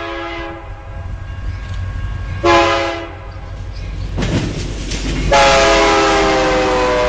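Freight diesel locomotive air horn sounding a chord: the end of a long blast, a short blast about two and a half seconds in, then another long blast from about five seconds in that falls slightly in pitch. A low rumble of the train runs underneath, with a brief rush of noise about four seconds in.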